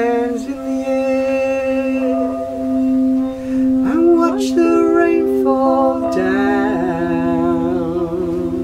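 A band plays improvised music: a steady low drone is held throughout while wordless singing moves between long held notes over it.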